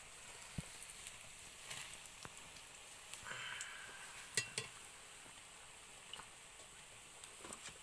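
Batter-coated potato fritters sizzling steadily as they deep-fry in oil in an iron kadai, with a few short clinks of a metal slotted skimmer against the pan.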